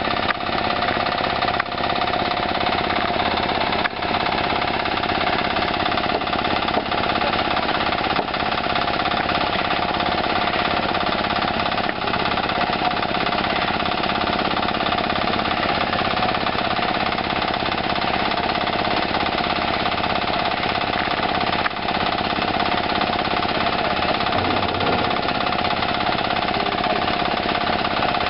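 Concrete-pouring machinery running loud and steady, a constant mechanical din with a steady high hum over it.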